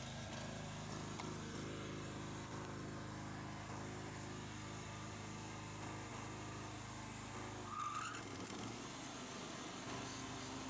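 Toro TimeMaster walk-behind mower's small petrol engine running steadily. About eight seconds in its note changes, with a brief rising squeal, as the blade engage bail is pulled and the blade brake clutch takes up the blade.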